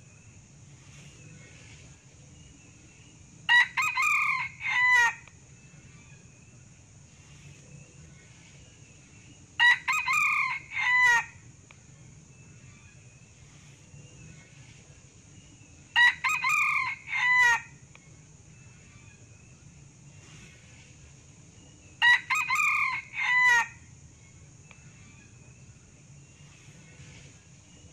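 Male red junglefowl crowing four times, about every six seconds. Each crow is short and broken into several quick pitched parts, lasting about a second and a half. A steady high hiss runs underneath.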